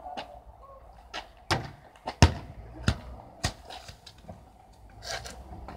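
Inflated football thudding as it is struck or caught again and again: a run of sharp thuds roughly two-thirds of a second apart that stops a little past halfway.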